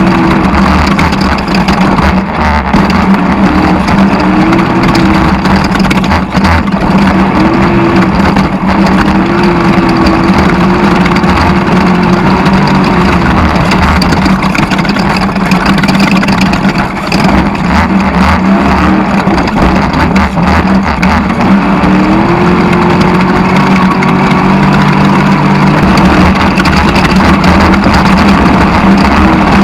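Off-road desert race car's engine running hard under load, its note rising and falling several times with the throttle over a continuous loud rush of noise.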